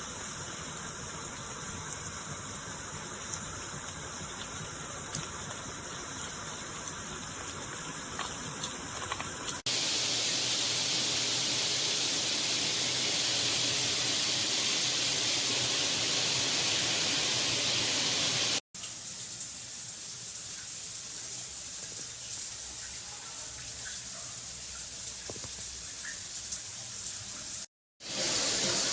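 Water spraying steadily from a handheld filtered shower head. It breaks off and resumes abruptly three times, and the middle stretch is hissier.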